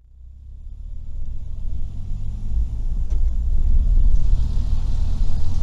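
A car driving, heard from inside the cabin: a steady low rumble of engine and road noise, rising from quiet over the first second or so.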